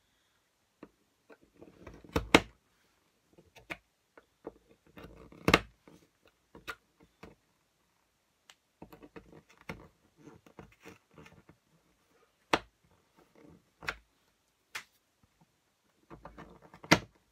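Hand punch of a We R Memory Keepers Sew Ribbon guide pressed through cardstock to pierce ribbon holes. About six sharp clicks come at irregular intervals, with quieter tapping and paper rustling between them.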